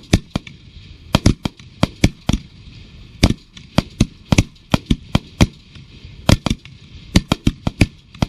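A loud, irregular series of sharp cracking pops, about three or four a second, some in quick pairs.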